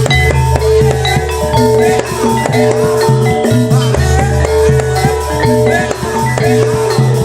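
Javanese gamelan-style music accompanying a kuda lumping dance: metallophones striking a busy melody over drums and deep sustained low notes.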